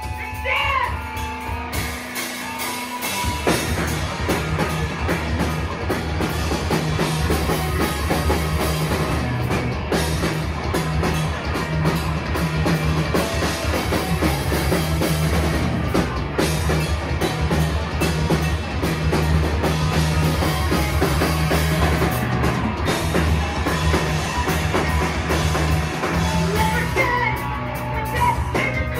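Live rock band with electric guitars, bass guitar and drum kit playing loudly. The full band comes crashing in about three seconds in, after a sparser opening, and eases a little near the end.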